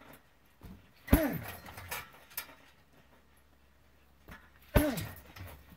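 Two kicks landing on a hanging heavy punching bag, about three and a half seconds apart, each a loud thud with a short grunt falling in pitch, and a lighter step-thump just before each.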